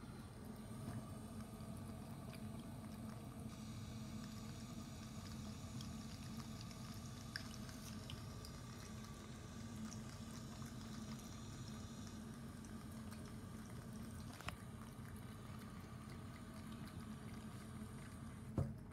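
Thin stream of water trickling from a bathroom sink faucet into the basin, with a cat drinking from the stream. Near the end there is a sharp knock as the faucet handle is turned, and the running water stops.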